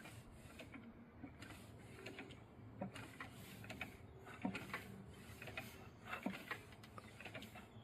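Irregular faint clicks, knocks and creaks of a bell rope and its fittings while a church's treble bell is being raised. A few sharper knocks come in the second half. No clear bell strike rings out.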